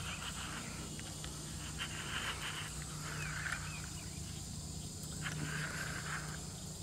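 Faint evening wildlife: insects and a few short chirping calls over a steady low hum.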